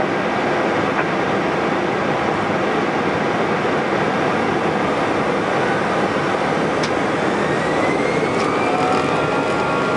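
Airbus A320-214's CFM56 turbofan engines at takeoff thrust, heard from the cockpit as the takeoff roll begins: a steady loud rush, with a thin rising whine coming in about halfway through as the aircraft accelerates.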